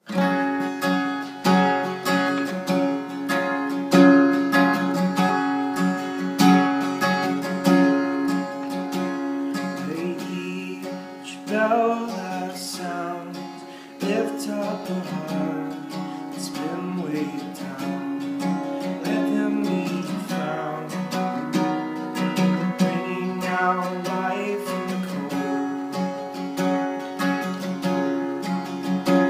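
Capoed steel-string acoustic guitar strummed in a steady rhythm, with a man's voice singing over it from about ten seconds in.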